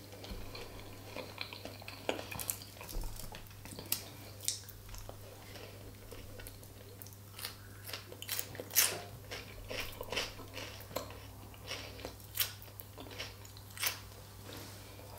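Close-up mouth sounds of a person eating: chewing and biting with irregular wet clicks and crisp crunches, the loudest about nine seconds in.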